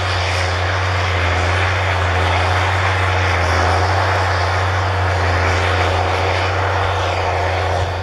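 CAT Challenger MT755B rubber-tracked tractor running close by: a loud, steady low engine drone under a dense, even mechanical noise.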